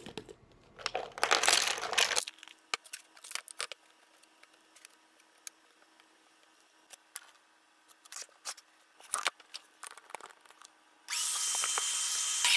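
Wooden plate-joining biscuits poured out of a plastic jar with a short loud rattle, followed by scattered light clicks as they are handled. Near the end a DeWalt plate joiner's motor switches on and runs with a steady high whine.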